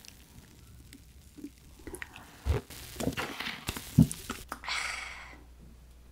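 A person drinking beer from a glass mug: a couple of soft swallowing gulps, then a soft hiss near the end.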